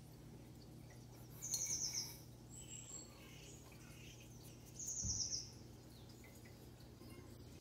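Recorded winter morning birdsong laid in as background: several small birds chirping, with two loud high trills about a second and a half in and again about five seconds in, over a faint steady hum.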